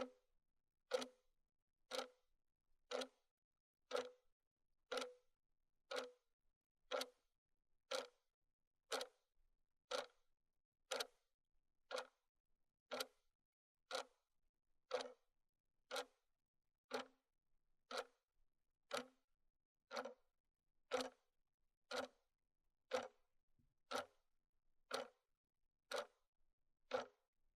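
Clock ticking steadily, one sharp tick every second.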